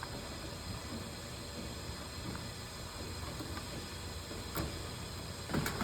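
Steady low background hum with a few faint small clicks near the end, from wires being handled and pulled out of the ballast's push-in wire ports.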